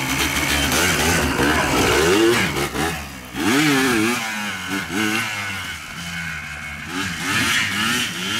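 Sport quad (ATV) engine revving up and down as it is ridden across rough grass, its pitch rising and falling with the throttle. It drops off briefly about three seconds in, then revs up again. It grows fainter as it moves away, and revs once more near the end.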